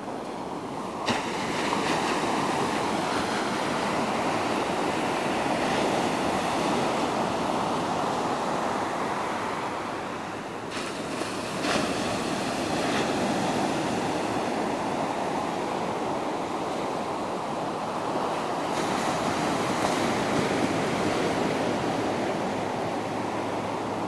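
Ocean surf breaking and washing up a sandy beach: a continuous rush of waves and foam that eases slightly around the middle before building again.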